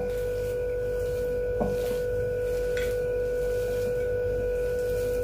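A steady, unwavering tone at one pitch with faint overtones above it, with two faint ticks partway through.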